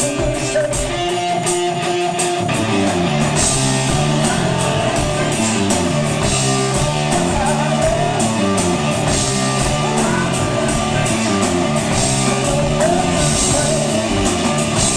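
Live rock band playing a guitar-driven song over a steady drum beat; a stepping bass line comes in about two seconds in.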